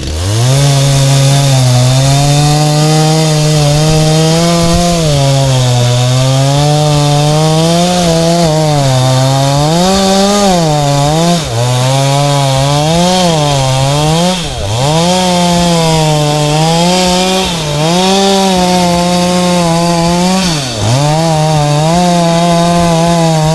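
Two-stroke chainsaw revving up sharply at the start, then running at high speed while cutting through a tree trunk. Its pitch sags and recovers again and again as the chain loads up in the cut, with several deeper dips.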